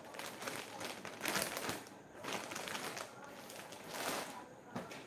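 Clear plastic packaging bag crinkling and rustling in irregular bursts as a folded garment is pulled out of it by hand.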